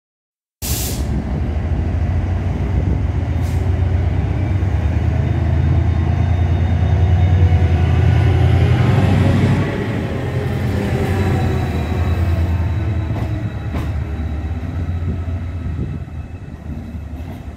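Chiltern Railways Class 68 diesel-electric locomotive 68011, with its V16 diesel engine, pulling away with a loud low engine drone. The drone is loudest as the locomotive passes close by, drops off a little after halfway, and fades as it draws away.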